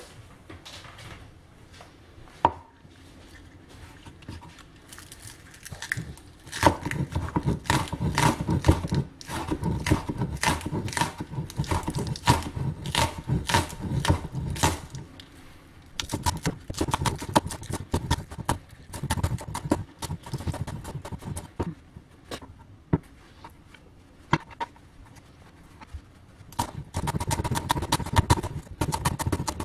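Cleaver chopping green onions and then leafy greens on a wooden cutting board: runs of quick, sharp knocks of blade on wood, with short pauses between runs.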